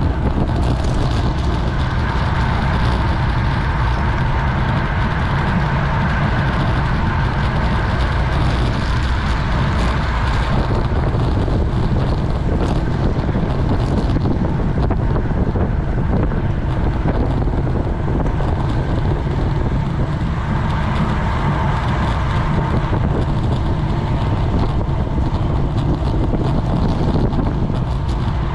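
Steady wind rushing over a GoPro microphone on a road bike at race speed, with the low rumble of the ride underneath.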